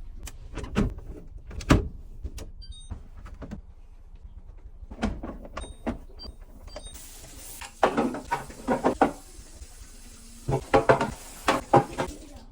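Knocks, clatter and sliding of fridge parts being handled while the fridge is cleaned, with a steady hiss starting about halfway through and bursts of squeaky rubbing.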